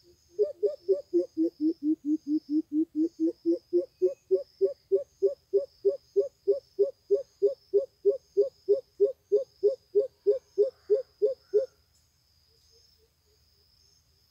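Greater coucal call: a long run of deep, evenly spaced hoots, about three a second, rising slightly in pitch after the first couple of seconds and cutting off abruptly near the end. Insects trill faintly and high in the background.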